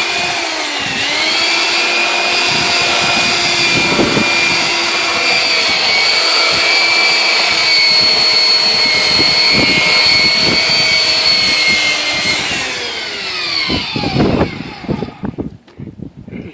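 Electric belt sander running with a steady high whine, its pitch dipping briefly about a second in as it is pressed onto the wood. Near the end it is switched off and winds down, falling in pitch, with a few knocks as it is handled.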